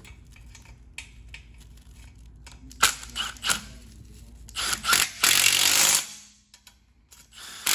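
Milwaukee cordless impact driver tightening the bolts of a kart's axle bearing hanger: light clicks of the socket and hardware being fitted, a few short bursts about three seconds in, then a longer run of about a second and a half that stops near six seconds.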